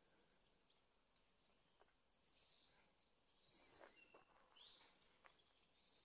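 Near silence with faint distant forest bird calls: short high chirps and quick falling notes here and there, more of them in the second half, with a few faint clicks.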